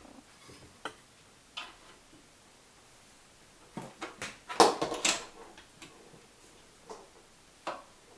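Scattered clicks and plastic knocks from hands handling a Zelmer electric grill at its side control and plug, with a cluster of louder knocks about halfway through.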